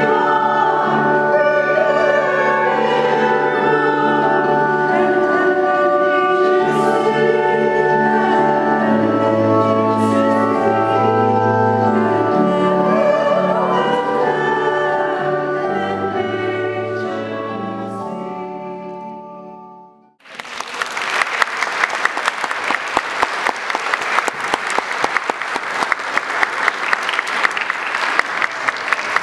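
Voices singing with instrumental accompaniment, a held final chord fading away about twenty seconds in. Then an audience applauding.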